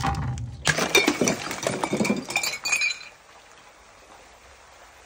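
A large liquid-filled glass bottle falling onto concrete steps and shattering: a first knock, then about two seconds of breaking glass and clinking shards as the pieces and liquid spill down the stairs, stopping suddenly about three seconds in.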